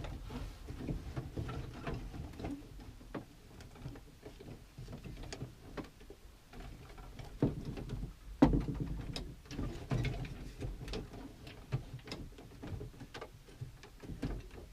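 Foley sound effects made by hand: a run of irregular clicks, knocks and small handling noises, with two louder knocks around the middle.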